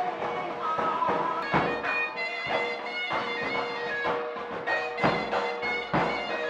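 Traditional Manipuri festival music: a steady drone held under a higher melody, with regular drum strokes about every half second.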